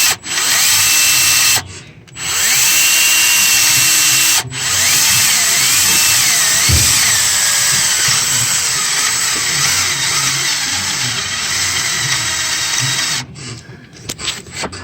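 Power drill boring into a broken EGR bolt on a 6.7 diesel engine. It runs in bursts, with three brief stops in the first four and a half seconds. It then runs steadily for about nine seconds, its pitch wavering as it works under load, and stops about thirteen seconds in.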